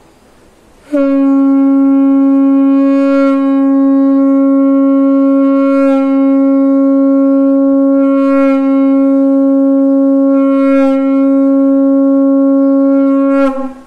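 Large conch shell (shankh) blown in one long blast of about twelve seconds at a steady pitch, starting about a second in and cutting off near the end. Four times the tone swells brighter with harder blowing: the high-low variation of a shankhnaad tune.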